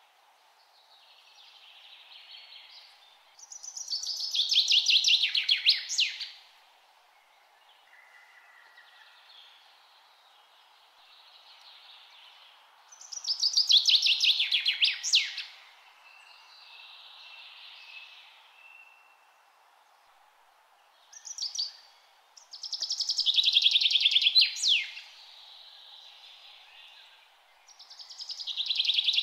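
Songbirds singing. One bird repeats a loud, fast trilled phrase of two to three seconds four times, each ending in quick downward slurs. Softer snatches of song from other birds come between the phrases, over a faint steady hiss.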